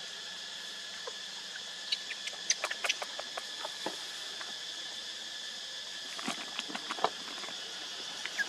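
Steady high insect drone, with scattered sharp clicks and taps that are busiest around two to three seconds in and again around six to seven seconds in.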